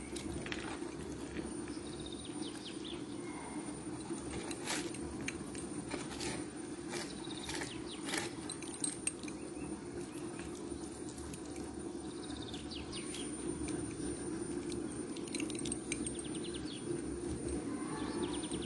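Knife cutting raw tuna fillet into small cubes on a wooden cutting board: scattered light taps and clicks of the blade against the board, over a steady low hum.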